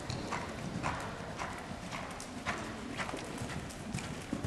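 Hoofbeats of a horse cantering on soft arena footing, with a dull knock about every half second.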